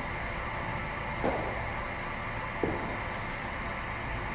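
Steady mechanical hum of a cricket bowling machine running between deliveries, with two faint knocks.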